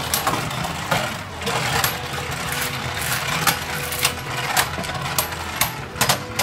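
Two Beyblade Burst Turbo tops, Fafnir F4 and Rudr R4, spinning in a plastic stadium: a steady whirring, broken by sharp clacks each time the tops strike each other or the stadium wall, about once or twice a second.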